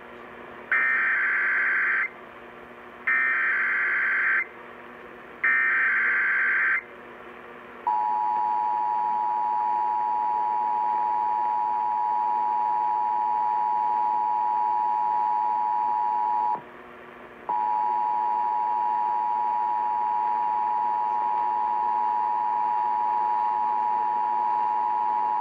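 Emergency Alert System tones over broadcast radio, sent for a Required Monthly Test: three short bursts of SAME header data, each about a second long, then the steady two-pitch EAS attention signal, which drops out for about a second partway through and then comes back.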